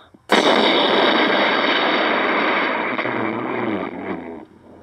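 Loud, distorted rushing noise of breath blown straight into a child's toy microphone pressed against the lips. It starts suddenly and lasts about four seconds, then fades out.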